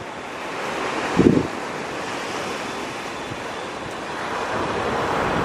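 Sea surf breaking against a rock seawall and wind buffeting the microphone, with a strong gust about a second in. The rushing noise swells near the end.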